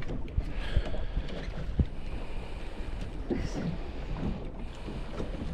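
Wind buffeting the microphone over water lapping against a small fishing boat's hull, with a few light knocks.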